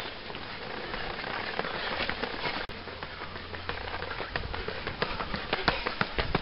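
Runners' footsteps on wet tarmac: irregular footfalls over a steady hiss, getting louder and more frequent in the second half as runners pass close by.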